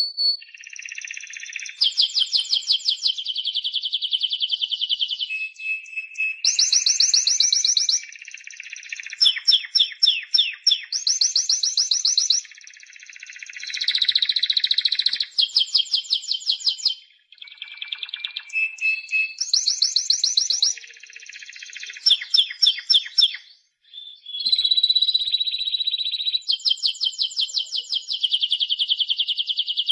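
Spanish Timbrado canary singing a long, continuous song of rapid trills alternating with held whistled notes. The song has two brief pauses, one near the middle and one about three-quarters through.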